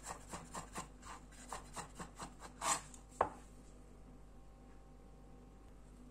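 Chef's knife dicing boiled potato on a wooden cutting board, with quick rhythmic chops at about four a second. About three seconds in there is a single sharp knock as the knife is laid down on the board.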